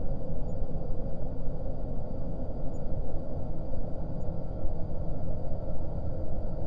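Dungeon air ambience: a steady, low rumbling drone of moving air, with a faint held hum above it and no distinct events.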